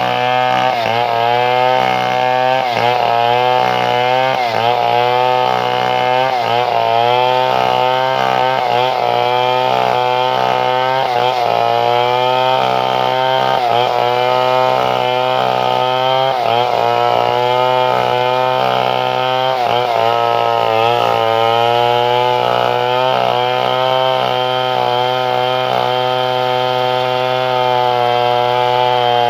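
Chainsaw engine running hard while cutting wood. Its pitch sags and recovers every second or so as the chain bites into the cut.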